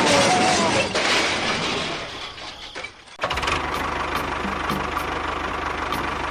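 A loud noisy stretch that fades away, then about three seconds in an engine starts running steadily at idle with an even, rapid pulse.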